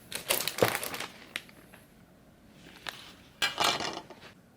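Hobby tools and plastic parts handled on a work desk: two short flurries of rustling and clicking, about a second long each, with a single click in between.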